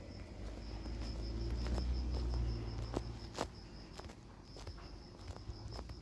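Insect chirping, a high-pitched pulse repeating about five times a second, with a low rumble that swells and fades in the first half and scattered sharp clicks, one louder about three and a half seconds in.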